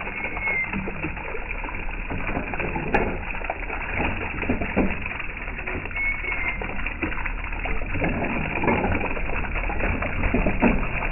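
Running water splashing and gurgling steadily, with a bird giving a short high call about every six seconds.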